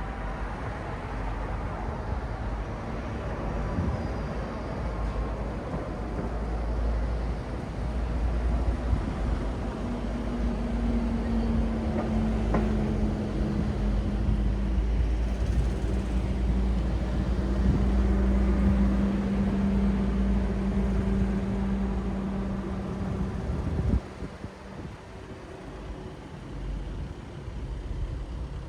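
City street traffic: a steady low rumble of passing vehicles, with a heavy vehicle's low engine hum held through the middle. About 24 seconds in, the rumble drops suddenly and the traffic sounds lighter to the end.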